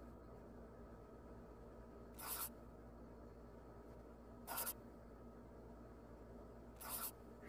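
Three short, faint swishes about two and a quarter seconds apart, a video-editing sound effect, over a low steady hum.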